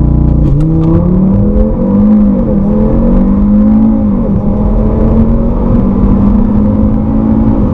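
RaceChip-tuned Audi RS 3 Sportback's turbocharged 2.5-litre five-cylinder engine accelerating hard at full throttle from a standing start, heard from inside the cabin. The engine note climbs and dips briefly at each quick upshift of the dual-clutch gearbox, with a few sharp clicks about half a second in.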